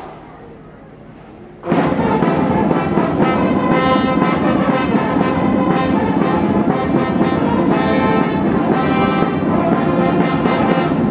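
Military brass band strikes up about two seconds in, brass and drums playing together loudly.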